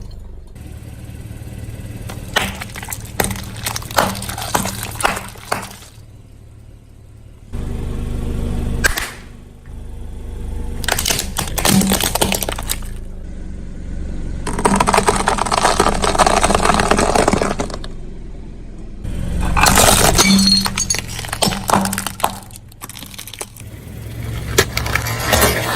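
A car tyre rolling over brittle objects and crushing them: several separate bursts of cracking, crunching and shattering, one longer dense stretch of crackling in the middle. A low hum from the car runs beneath.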